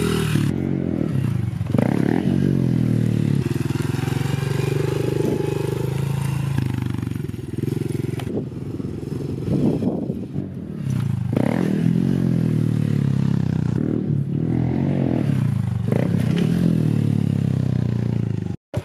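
Honda CRF110 pit bike's small single-cylinder four-stroke engine running under throttle as it is ridden, its pitch rising and falling several times with the throttle. The sound cuts off abruptly just before the end.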